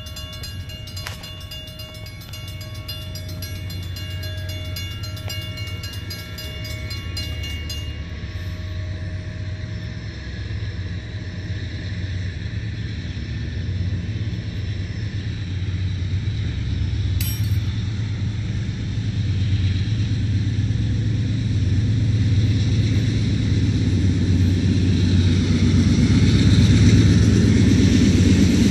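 Two mechanical railroad crossing bells (Safetran and WCH) ringing in rapid strokes, then stopping about eight seconds in once the gates are down. After that, the low rumble of an approaching Norfolk Southern freight train's GE diesel locomotives grows steadily louder, with no horn sounded.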